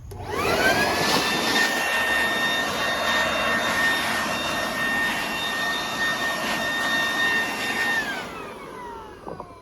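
A Shop-Vac wet/dry shop vacuum is switched on: its motor winds up quickly to a loud, steady whine with a rush of air. A little before the end it is switched off and the whine falls as the motor spins down. It pulls well, but the owner finds the motor sounds a little off and tight, and he puts that down to it having got wet and rusted.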